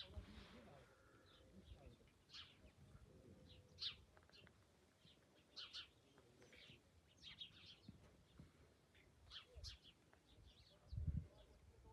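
Faint, scattered bird chirps, short high calls coming every second or so. About eleven seconds in there is a brief low rumble.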